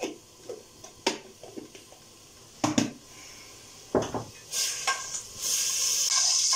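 Spoon and hand knocking against an aluminium pot on a gas stove, a few separate clanks over the first four seconds. From about five seconds in, a steady hiss rises as the ghee heats and starts to sizzle in the pot.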